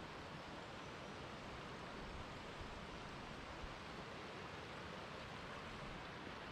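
Steady rushing of a shallow mountain river flowing over rocks.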